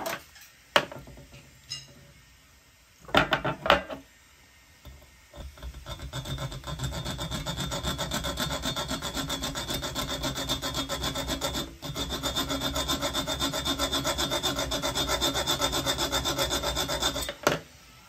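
Hacksaw sawing back and forth across the head of a small metal screw held in pliers, cutting a straight slot so it can be turned with a flat-blade screwdriver. A few clinks of tools being handled come first. The fast, even strokes start about five seconds in, break off briefly about twelve seconds in, and stop shortly before the end.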